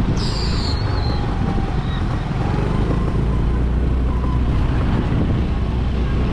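Riding on a motorcycle: steady wind rush over the microphone with a low engine and road rumble underneath.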